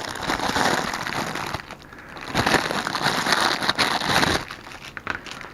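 Packaging of a replacement camera case crinkling and crackling as it is handled and opened, in two spells, the second starting a little over two seconds in.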